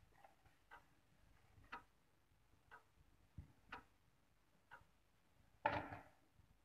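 Faint clock ticking steadily, about once a second. About five and a half seconds in comes one brief louder scrape and knock as a spatula works batter against the metal cake pan.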